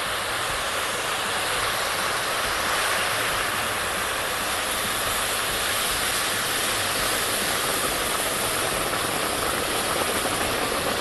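Boiling water pouring in a steady stream from an electric kettle onto rice and toasted vermicelli in a hot pot, a continuous rushing hiss as it steams.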